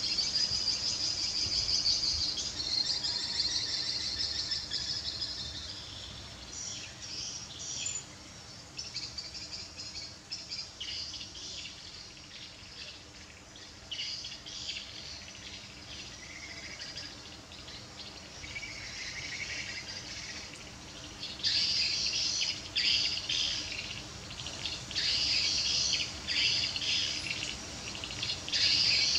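Outdoor ambience of birds chirping and insects chirring, a high-pitched, continuous chatter that is louder in the first few seconds and again through the last third.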